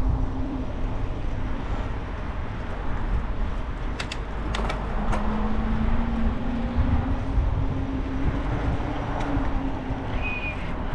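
Riding noise in traffic: a steady rush with a low steady hum, and a few sharp clicks about four to five seconds in.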